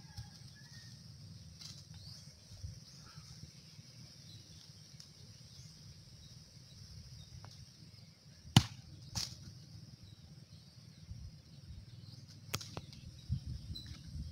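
Young coconuts twisted off a palm and dropped, hitting the ground with sharp thuds: a loud one about two-thirds of the way in, a second half a second later, and a third near the end.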